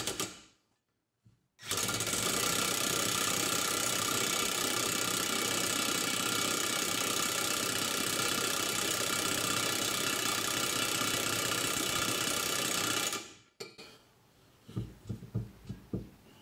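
Cordless impact wrench hammering steadily for about eleven seconds on the pinion nut of a Ford 8.8 rear differential, tightening it to take up the last of the pinion play before setting bearing preload. It stops abruptly, and a few light knocks of handling follow.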